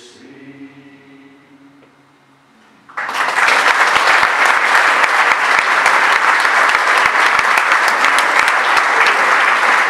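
A male a cappella choir's last held chord dies away, and about three seconds in an audience breaks into loud, sustained applause.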